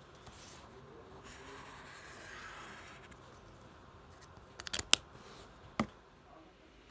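Soft rustling and scraping of desk work, then a quick run of sharp clicks about five seconds in and one more click about a second later.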